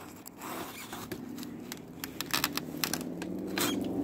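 Pocket chainsaw's toothed chain pulled back and forth through a log, an irregular rasping with many sharp clicks that grows louder. A low steady hum comes in about halfway.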